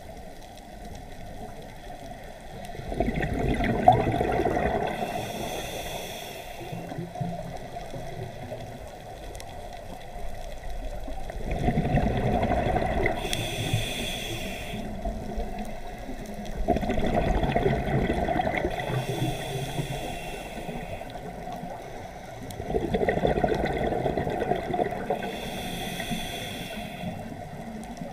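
Scuba diver breathing through a regulator underwater: about four breaths, roughly six seconds apart, each a rumbling burst of exhaled bubbles followed by the hiss of the next breath drawn through the regulator.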